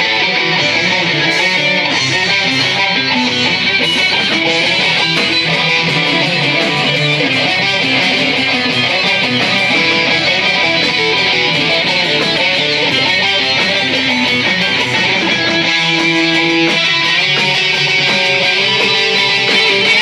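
Guitar-led music, strummed steadily at an even loudness.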